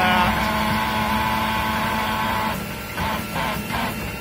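Utility truck's hydraulic auger boring a pole hole, its engine and drive running steadily with a whine. The whine drops away about two-thirds of the way through, leaving a few short pulses.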